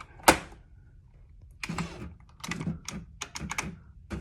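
IBM Wheelwriter 1000 electronic typewriter typing a line to test a newly fitted ribbon. One loud sharp knock comes about a third of a second in. From about a second and a half, a quick, uneven run of about ten printwheel strikes follows.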